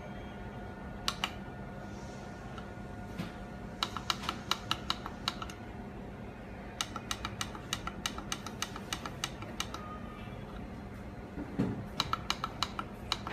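Push buttons on an LED pixel controller clicking as they are pressed over and over, in quick runs of several clicks a second with pauses between, over a steady hum.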